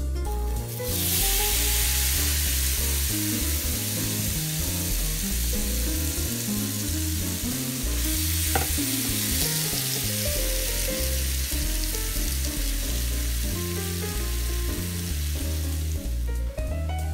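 Chopped mango hitting a hot oiled skillet and frying with a loud sizzle that starts about a second in, while it is stirred with a spatula. The sizzle drops away near the end.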